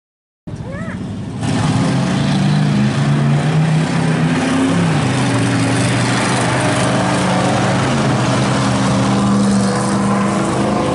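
Several dirt-track race car engines running hard and revving as the cars race around the oval, several engine pitches rising and falling together. The sound cuts in abruptly about half a second in and grows louder a second later.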